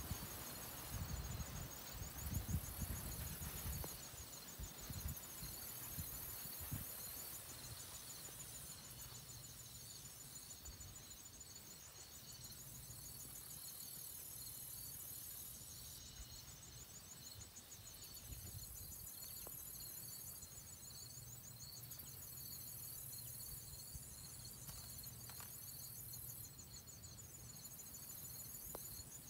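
Insects trilling steadily: a continuous, fast-pulsing high chirring at two pitches, with a still higher hiss that comes and goes in stretches of a few seconds. Low rumbles on the microphone in the first few seconds.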